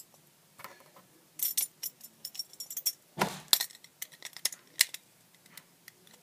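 Irregular small plastic clicks and rattles of a Beyblade spinning top being handled and set up for a launch, with a louder clatter about halfway through.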